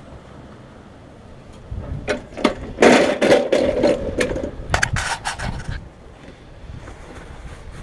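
Knocks, clatter and rustling from hands handling the mower's parts and the camera, loudest in the middle, over a steady wind rumble on the microphone.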